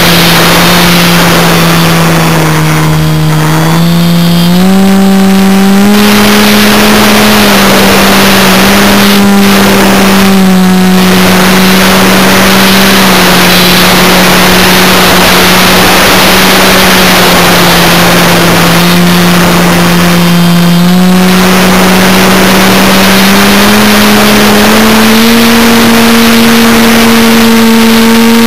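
Motor and propeller of a radio-controlled model aircraft, heard from a camera on board: a loud, steady drone over a constant hiss. Its pitch steps up about four seconds in and again near the end as the throttle changes.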